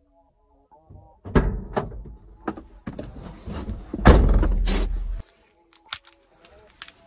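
Someone getting into a car's driver's seat, with knocks and rustling, then pulling the car door shut with a loud thump about four seconds in. After a sudden cut, a few light clicks of a car key being handled.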